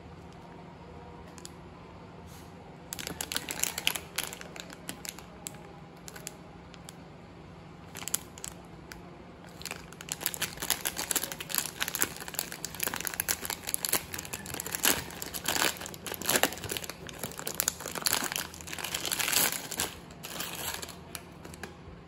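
Plastic ice-pop wrapper crinkling and tearing as hands peel its sealed seam open: a short burst about three seconds in, then almost continuous crinkling from about ten seconds until near the end.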